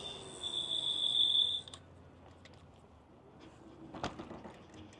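High, steady whine from a 72V dual-motor electric scooter as it rolls and slows, cutting off suddenly under two seconds in. After that it is nearly quiet, with a few faint ticks.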